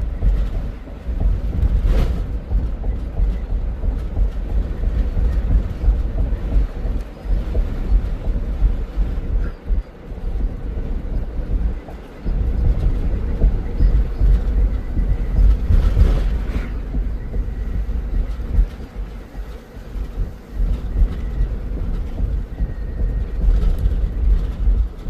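Steady low rumble of a vehicle driving on a concrete highway, heard from inside the cab: road and wind noise, with a couple of sharper knocks over bumps or slab joints.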